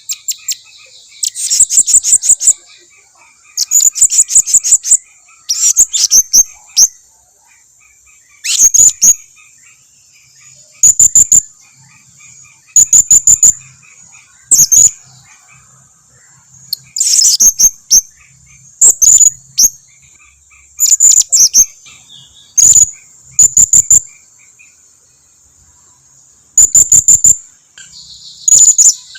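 Blue-crowned hanging parrots (serindit) calling: loud clusters of sharp, very high chirps repeated every second or two, used as a lure call. A steady high insect drone runs underneath.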